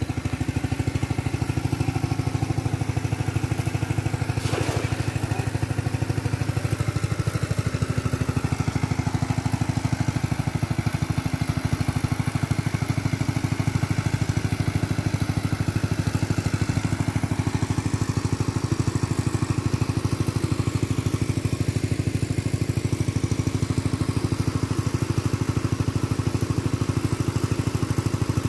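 A small engine running steadily at a constant speed, with one brief click about five seconds in.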